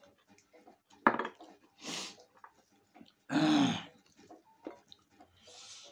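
Eating noises: small mouth and dish clicks, with a few short voiced sounds from the eater. The loudest comes about three and a half seconds in, its pitch rising then falling.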